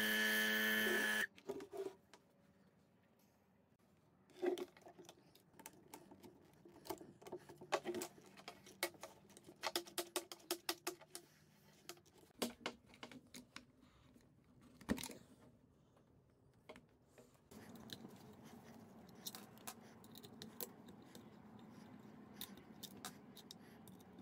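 Music cuts off about a second in. Then come scattered clicks and knocks of an old twin-cylinder car air compressor being taken apart by hand: metal and plastic parts handled, the hose fitting worked and small cylinder-head screws undone.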